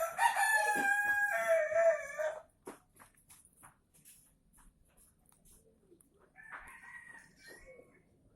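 A rooster crows once, loud, lasting about two and a half seconds, followed by faint scattered clicks and, near the end, a second, quieter fowl call.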